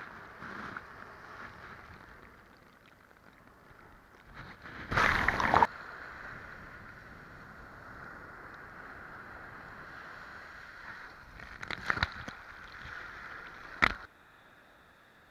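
Sea surf washing up the beach at the waterline: a steady hiss of breaking waves and foam, with a loud splashing surge about five seconds in and sharp splashes twice near the end. The sound then drops suddenly to a faint hiss.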